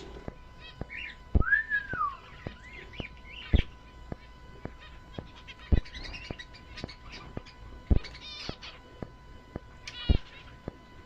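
Small birds chirping and trilling, with one clear rising-and-falling whistle about a second and a half in. A sharp knock repeats about every two seconds, and a faint steady tone sounds underneath.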